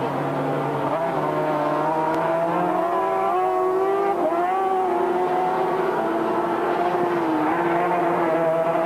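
Racing sidecar outfit's 500cc two-stroke engine running hard at high revs, its note dipping and rising several times as it is driven around the track.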